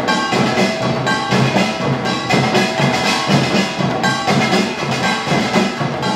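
Utdari samulnori ensemble playing: kkwaenggwari small gongs clanging over janggu hourglass drums and buk barrel drums, with a jing gong, in a dense, continuous rhythm.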